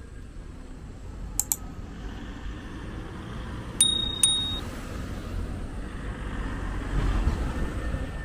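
Subscribe-animation sound effects over street traffic: a mouse click about a second and a half in, then two more clicks with a short bell ding around four seconds in. A car passes close by near the end.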